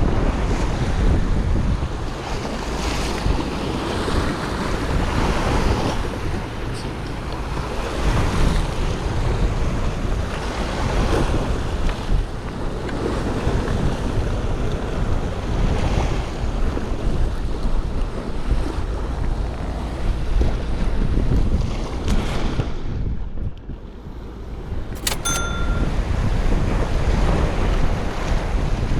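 Sea waves washing against shore rocks in surges, with wind buffeting the microphone. A brief high tone sounds about three quarters of the way through.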